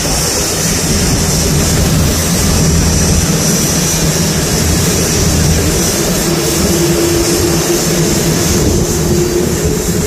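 Boeing 787-9's Rolls-Royce Trent 1000 turbofans running at taxi power as the airliner rolls past close by: a loud, steady rumble with a strong high hiss. A faint steady tone joins about six seconds in.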